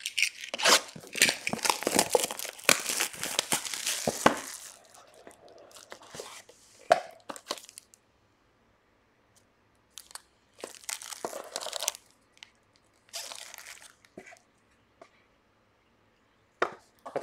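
Panini Impeccable Soccer box being unwrapped and opened: a dense stretch of crinkling and tearing wrapping for the first four seconds or so, then short separate rustles as the cardboard lid and the foil-wrapped pack are handled.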